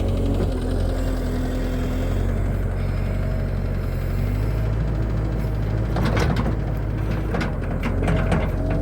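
New Holland L218 skid steer's diesel engine running steadily, with a faint tone that rises and falls slightly as it works. A run of sharp clatters and knocks comes about six seconds in.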